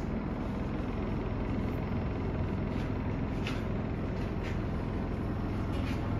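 Steady low rumble of a road vehicle on the move, with a few brief faint hisses or clicks.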